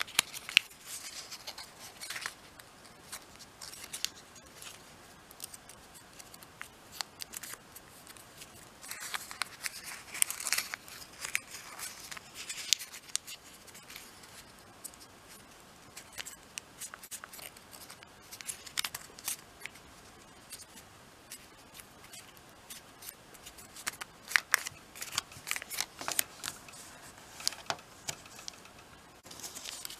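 Orange origami paper being folded and creased by hand: irregular crinkling and crackling as the sheet is pressed and tucked, coming in clusters with quieter pauses between them.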